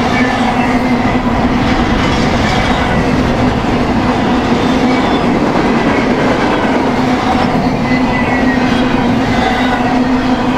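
BNSF intermodal freight train rolling past: a loud, steady rumble of wheels on rail with a continuous low hum and faint wavering high tones.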